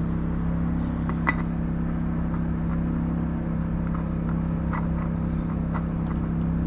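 A steady low machine hum throughout, with a few light metallic clinks of tools or parts being handled.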